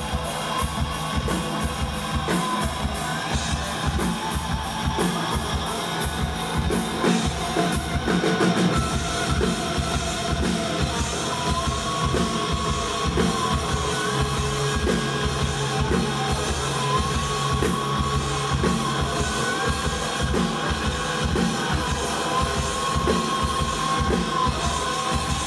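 Live rock band playing an instrumental passage. The drum kit keeps a steady, busy beat under bass and sustained electric guitar lines.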